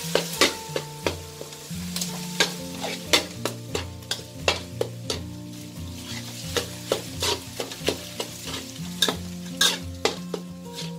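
A metal spatula scrapes and taps against an aluminium wok as minced garlic and shrimp paste are stir-fried over low heat, with a light sizzle underneath. The clicks and scrapes come irregularly, about twice a second. The paste is being fried until it turns fragrant, before any liquid is added.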